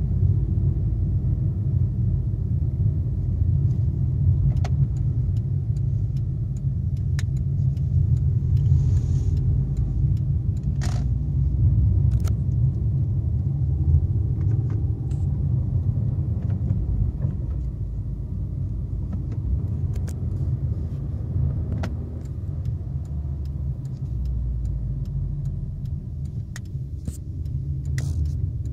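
Fiat Panda 1.2's engine and road noise heard from inside the cabin while driving, a steady low rumble, with scattered light clicks.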